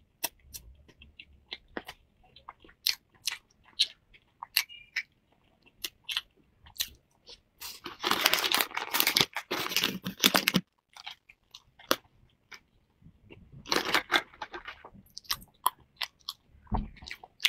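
Close-miked chewing of a flaky egg yolk pastry (dan huang su), with soft crunches and small sharp mouth clicks. About eight seconds in, a thin plastic wrapper crinkles loudly for two to three seconds as the next pastry is unwrapped, and a shorter burst of crinkling comes near fourteen seconds.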